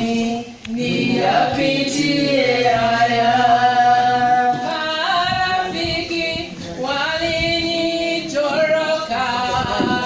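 A woman leading a slow Swahili worship song into a microphone, with other voices joining, sung without instruments in long held notes.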